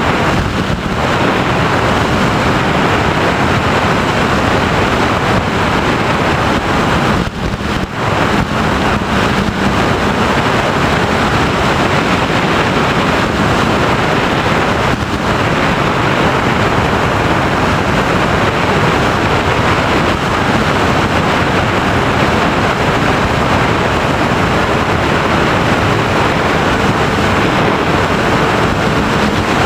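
Loud, steady rush of wind and propeller noise picked up by the onboard camera of an FPV Raptor, a small electric pusher-prop RC plane, in flight. The noise dips briefly about seven seconds in.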